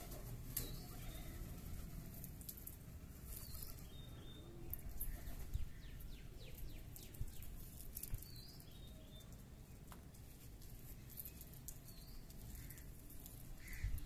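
Pigeons flying in and landing on a concrete rooftop: faint wing flaps near the start and again just before the end, with scattered soft taps as they walk and peck. A few short, high bird chirps come through now and then.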